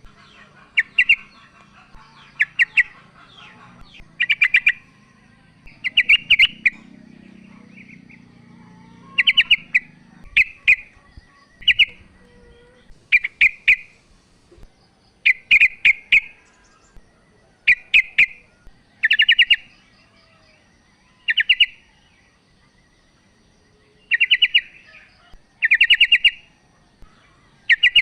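Female yellow-vented bulbul calling: short bursts of rapid chattering notes, repeated every second or two.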